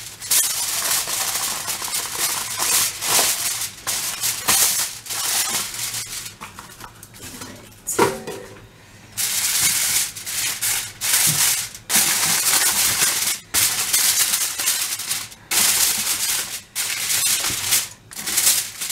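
Aluminium kitchen foil crinkling and crackling as a sheet is spread over a baking tray and crumpled down around its edges, in repeated bursts with a brief lull near the middle.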